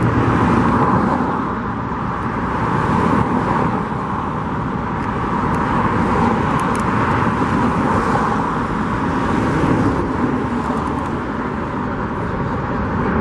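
Steady road traffic passing, the noise swelling and easing every few seconds.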